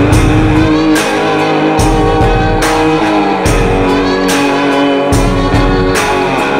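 Background music: guitar over a steady beat, with a drum hit a little under once a second.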